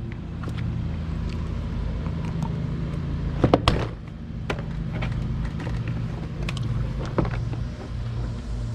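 Plastic door trim panel clicking and knocking as it is handled, the sharpest pair of clicks about three and a half seconds in, over a steady low hum.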